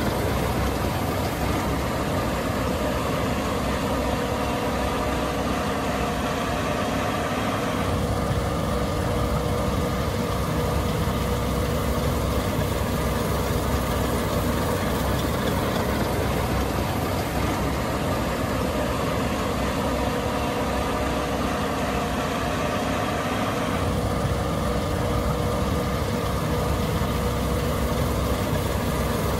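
Case IH 8260 Axial-Flow combine running steadily, a constant heavy engine drone. Its tone shifts slightly about eight seconds in and shifts back near the end.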